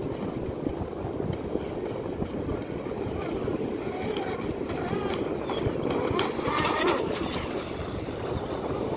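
An electric RC speedboat, a Vector SR80 Pro, running out on the lagoon, heard under wind on the microphone and water noise at the shoreline, with faint bird calls. The sound grows a little louder around six to seven seconds in.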